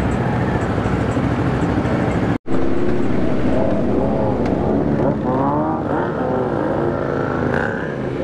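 Motorcycle engines running, with several engine notes rising and falling in short revs through the second half. The sound cuts out completely for a split second a little over two seconds in.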